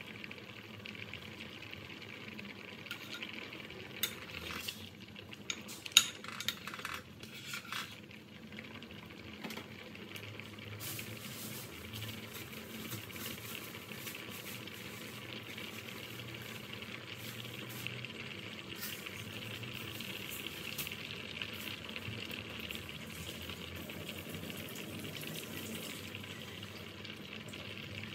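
Pot of sweet potato chunks at a rolling boil, a steady bubbling hiss. In the first several seconds a metal ladle clinks sharply a few times against the pot while skimming the foam.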